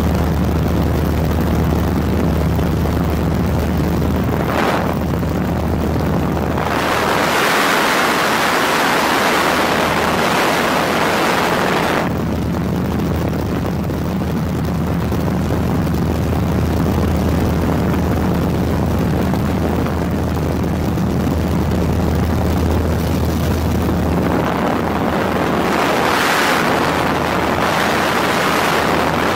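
Steady low engine drone from the filming craft, with rushing wind noise swelling over it about a quarter of the way in and again near the end.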